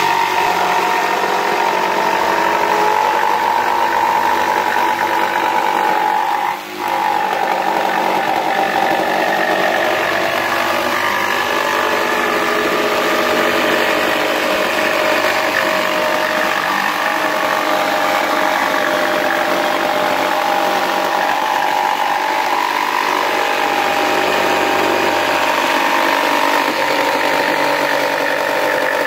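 Mafell P1cc jigsaw running steadily as it cuts a curve through 45 mm H3 treated pine. Its level dips briefly about seven seconds in, then carries on.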